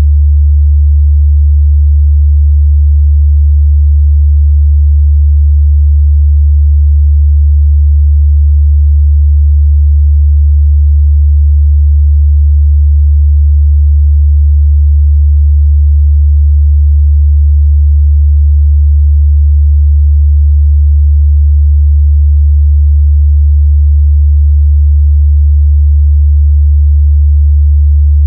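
A steady, loud 73 Hz sine-wave test tone, a single low bass hum held constant without change, used to check a speaker's or headphone's mid-bass response.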